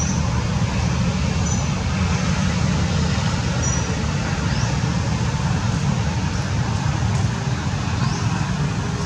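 Steady outdoor noise with a strong low rumble, with a few short high chirps in the first four seconds and two brief rising whistles later on.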